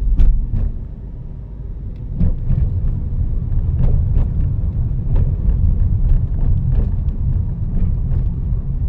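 Car driving slowly: a steady low rumble of road and wind noise, dipping briefly about a second in, with scattered light clicks and knocks.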